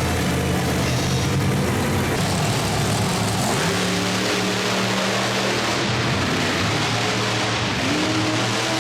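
Monster truck engines running and revving, the pitch climbing about a third of the way in and again near the end, with music mixed underneath.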